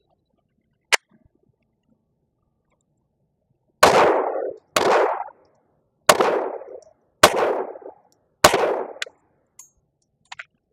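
Glock G44 .22 LR pistol firing five shots of CCI Mini Mag 36-grain ammunition about a second apart, each report with a short echoing tail. Every round fires and cycles without a malfunction. A single sharp click comes about a second in.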